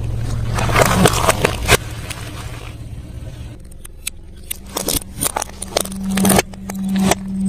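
A vehicle's engine running steadily, its pitch stepping up about halfway through, while food is crushed under its wheels: bursts of crunching and crackling about a second in and again in the second half.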